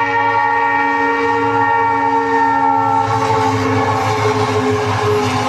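Indian Railways diesel locomotive sounding a long, steady multi-tone horn as it passes, the chord dropping slightly in pitch about three seconds in. Under it is the continuous low rumble of the locomotives and train.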